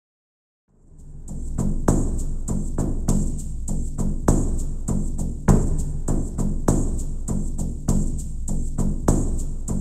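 Recorded Native American ceremonial drum music fading in from silence about a second in: a steady drum beat of about three strokes a second, with a heavier stroke a little more than once a second.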